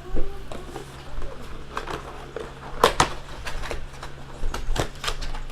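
A trading card box and its packaging handled and opened by hand: a series of sharp cardboard clicks, taps and rustles, loudest just after the start and about three seconds in.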